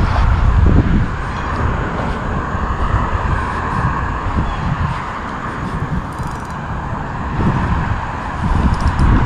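Wind gusting across the microphone in uneven low rumbles, over a steady rushing noise.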